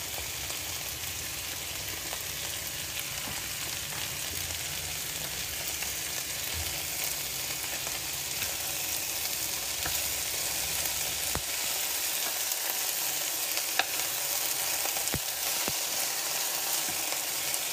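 Vegetables and rice vermicelli sizzling as they are stir-fried in an oiled frying pan and turned with wooden chopsticks, a steady frying hiss with a few sharp clicks in the second half.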